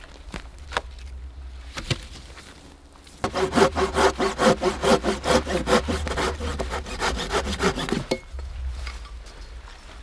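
Hand saw, a Silky folding pull saw, cutting through wood in quick, even back-and-forth strokes. The sawing starts about three seconds in and stops about five seconds later, after a few light knocks and rustles.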